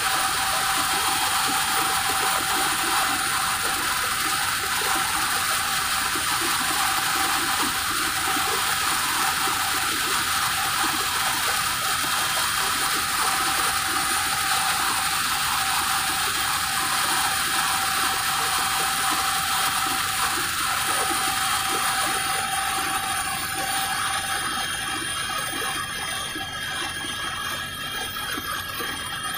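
Helicopter in flight, heard from inside the cabin: a steady rushing engine and rotor noise with several steady high whining tones on top. Near the end the high part fades and the noise gets a little quieter.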